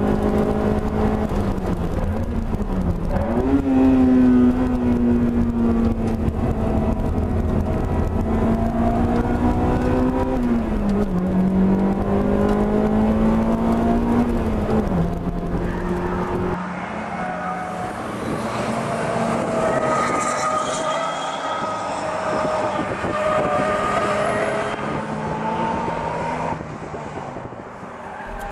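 Honda Integra Type R's four-cylinder VTEC engine heard from on board, pulling hard at high revs on track, its pitch climbing and then dropping at each gear change. About halfway through the sound cuts to trackside: race cars running on the circuit, their engine notes rising and falling as they pass.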